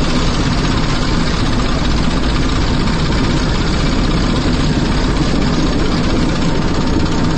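Helicopter in flight: loud, steady engine and rotor noise heard from inside the cabin, through the open door.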